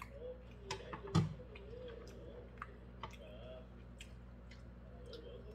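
Metal chopsticks clicking and scraping against a nonstick frying pan as pan-fried dumplings are picked up, with chewing. There is one louder knock about a second in.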